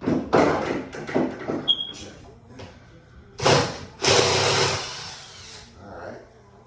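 Power drill-driver working screws out of the wall framing: several short bursts, then a longer run of about a second and a half.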